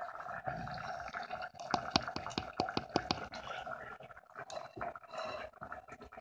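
Pot of chicken broth bubbling at the boil on a gas stove, with a run of sharp pops and clicks from the bubbles in the first half, over a steady hum.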